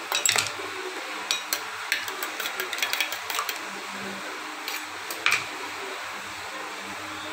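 Scattered sharp clicks and taps of kitchen utensils, in short clusters, over a steady background hiss.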